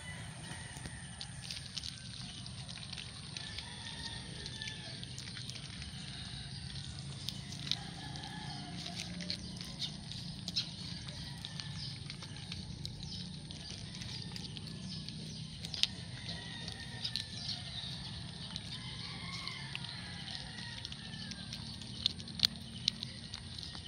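Kittens crunching dry kibble and knocking against plastic feeding plates, with sharp little clicks now and then. Birds call faintly in the background over steady outdoor ambience.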